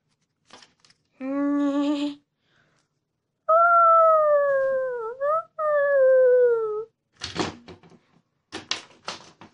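A child's voice making dinosaur sound effects: a short low growl about a second in, then a long high screech that falls in pitch and breaks once in the middle. Several knocks of toy dinosaurs against the table follow near the end.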